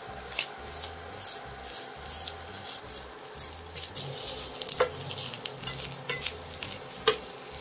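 Grated coconut frying in ghee in a pan, sizzling softly while a spatula stirs it, with occasional light taps and scrapes of the spatula against the pan.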